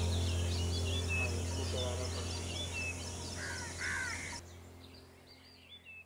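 A chorus of many small birds chirping and calling over a steady low hum, with a few harsher, lower calls a little past the middle; the whole fades out in the last couple of seconds.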